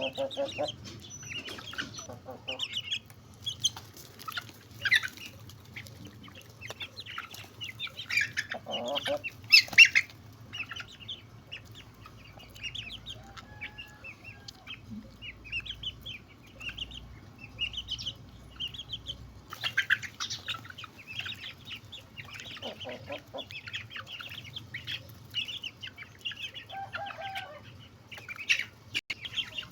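Chickens clucking, with many short high chirps and a few lower, louder calls scattered through.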